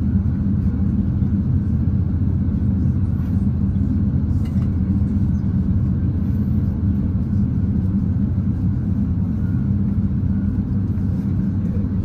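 Airbus A350-900's Rolls-Royce Trent XWB engines running steadily at low power, heard inside the cabin as a low rumble with a steady hum, with the aircraft lined up on the runway before the takeoff roll.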